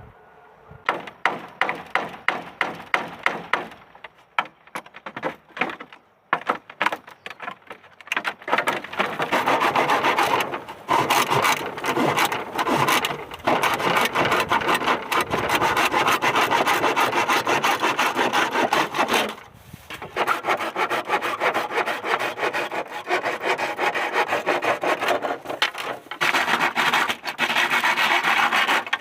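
Hand saw cutting wood: slow, separate strokes at first, then fast continuous back-and-forth sawing from about eight seconds in, with a short pause about twenty seconds in.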